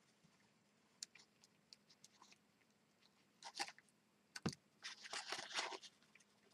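Faint rustling and crinkling of cardstock being handled as the backing is picked off a sticky-strip tab and the flaps are folded, with a few light ticks and one sharper tap about four and a half seconds in.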